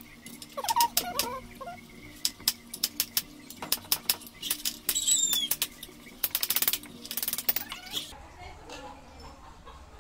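Sharp clicks and taps of hand work on a bicycle frame, with a couple of quick rattling runs about six and seven seconds in. A bird chirps once, about halfway through.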